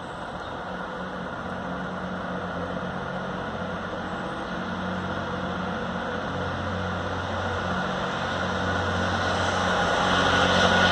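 Chiltern Railways diesel multiple unit approaching: its engines' low drone grows steadily louder, with a hiss building near the end.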